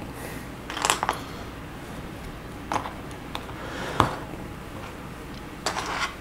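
Plastic Lego bricks clicking and snapping together as they are pressed onto a small build, a handful of separate sharp clicks with the loudest snap about four seconds in, then a short rattle of loose pieces near the end.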